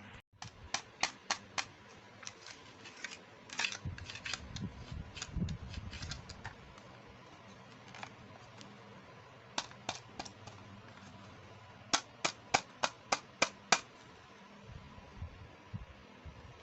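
Sharp plastic clicks in quick, even runs, about five near the start and seven in a fast row near the end, with a stretch of handling rustle and low bumps in between, as pieces of a toy makeup set are handled.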